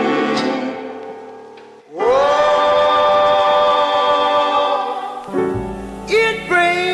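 Intro music: a held chord fades out, and a new sustained, choir-like chord swells in about two seconds in. Near the end a low beat with a sung vocal line comes in.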